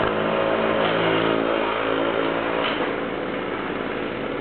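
Vehicle engines running, a steady low hum. The deepest engine note drops away about two and a half seconds in, while a higher engine hum carries on.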